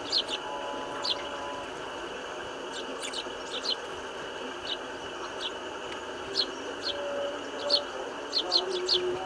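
Eurasian tree sparrows chirping: short, high chirps scattered through, coming more often near the end.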